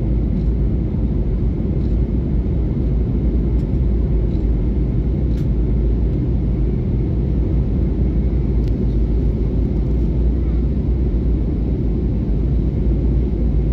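Cabin noise inside an Airbus A321neo airliner climbing after takeoff: a steady low rumble of the engines and the air rushing past, with a few faint clicks.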